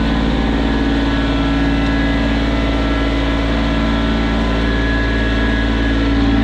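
Engine of a piece of equipment running steadily at constant speed, with an even drone that holds throughout.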